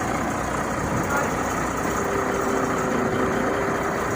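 Large vehicle engine running steadily at low revs, a continuous drone with a faint steady hum.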